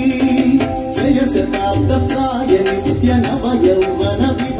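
Indian music with tabla drumming under a melody that bends and slides in pitch, likely a singing voice.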